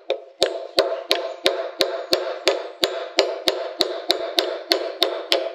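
Steel ball-peen hammer tapping steadily at about three blows a second, peening the end of a copper nail over a copper rove to set a boat-building rivet in a wooden strip.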